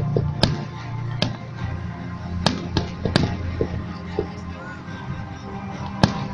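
Fireworks going off in several sharp bangs, a cluster of them in the first three seconds and one more near the end, over steady music.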